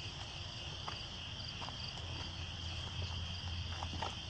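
Crickets chirping steadily, with a low steady hum coming in about halfway through.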